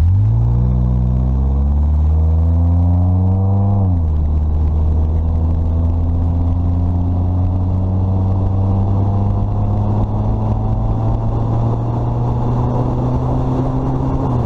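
Peugeot 205 automatic's 1.6 XU5 four-cylinder engine, running on individual motorbike carburettors, accelerating under load. The revs rise for about four seconds, drop sharply as the automatic gearbox changes up, then climb slowly and steadily again.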